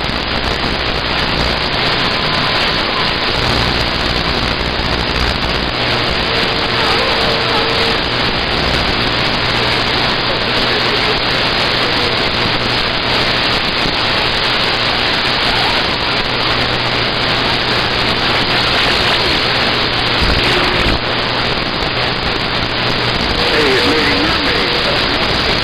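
Steady static hiss from a CB radio receiver with its squelch open, the band noise of fading long-distance skip conditions, with faint garbled voices of distant stations showing through it around seven seconds in and near the end.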